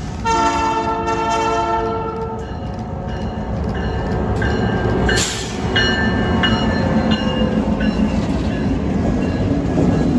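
Diesel locomotive horn sounding a long blast for about two seconds, then a train rolling by with a steady engine and wheel rumble.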